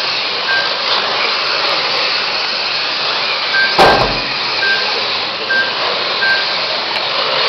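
Electric radio-controlled Mini racing cars running on the track: a steady whine of motors and tyre hiss. Several short high beeps sound at irregular intervals, and there is one sharp knock about halfway through.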